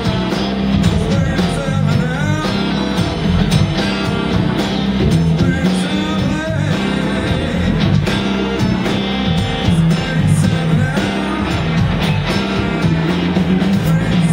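A live blues-rock band playing at full volume: electric guitars, keyboard, drums and a strong bass line. A lead guitar plays bent notes over the band.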